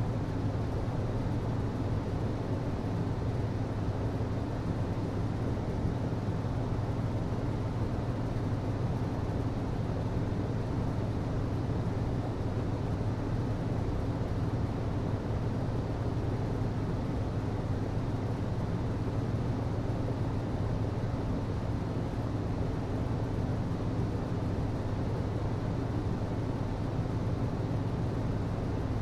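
HVAC system running: a steady low hum over a constant rush of air, with no change in pitch or level.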